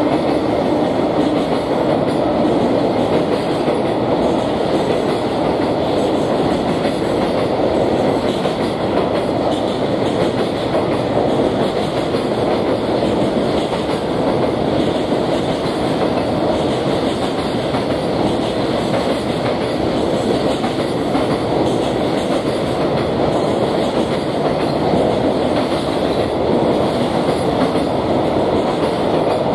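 Long container freight train running through at speed: a steady rumble of wagons on the rails, with the wheels clattering over rail joints.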